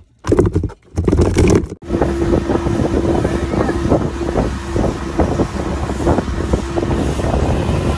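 Small fishing boat underway: its engine runs steadily with water and wind noise on the microphone. Before that, the first couple of seconds hold short choppy sounds that stop with a sudden cut.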